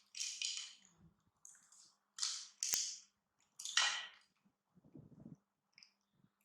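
Plastic snack bag being crinkled and pulled open in several short rustling bursts, with a sharp snap of the packaging about two and a half seconds in.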